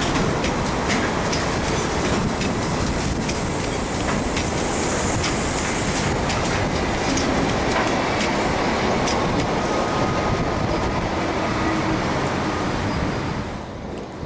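Loaded gravel hopper wagons of a freight train rolling past, the wheels clicking over the rail joints, with a brief high hiss about five seconds in. After the last wagon goes by, a steady rumble carries on and drops away near the end.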